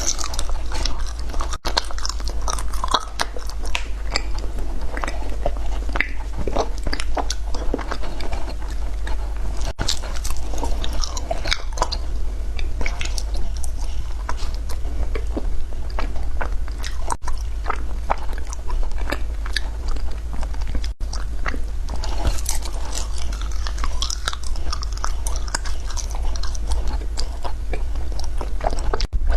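Matcha ice being bitten and chewed, a dense, irregular crunching and crackling that goes on without a break.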